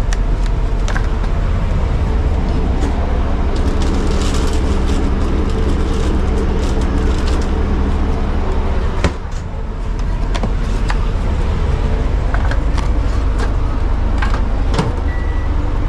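Ice cream van's engine running steadily as a loud, constant low hum, with scattered small clicks and knocks. The hum briefly drops about nine seconds in, then comes back.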